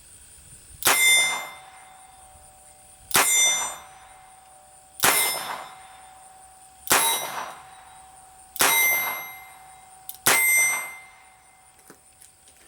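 Six shots from a Smith & Wesson Model 17 .22 LR revolver fired at a slow, steady pace, about two seconds apart, each crack followed by a short metallic ring.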